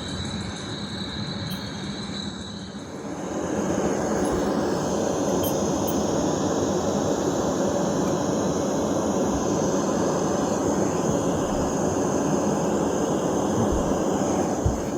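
DREAMIE sleep-aid speaker playing a steady noise soundscape. About three seconds in it switches to a louder, fuller noise that holds steady.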